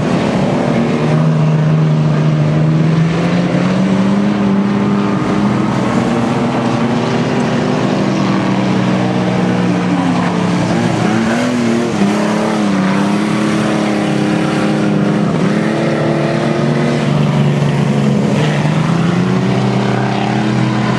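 Several small speedway race cars' engines revving up and down as the cars race around the track, the pitch rising and falling through the laps.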